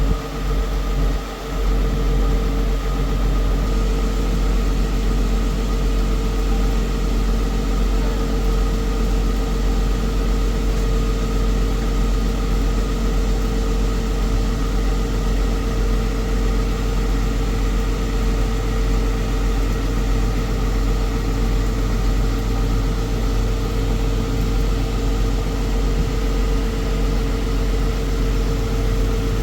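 Tractor engine running at a steady speed under field load while pulling a round baler: a constant drone with a steady hum, unchanging throughout.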